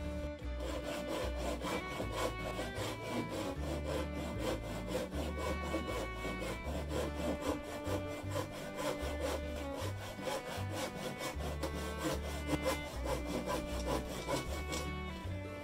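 Hand saw cutting through a small block of wood in a steady rhythm of back-and-forth strokes, with background music underneath.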